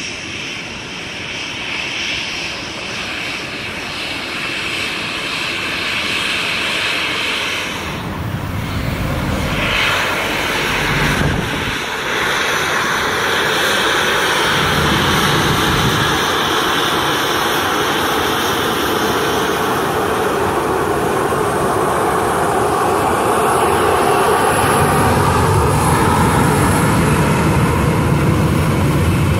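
Boeing 737-800's twin CFM56-7B turbofan engines at taxi power: a steady jet whine over a rushing rumble, growing louder as the airliner taxis past close by.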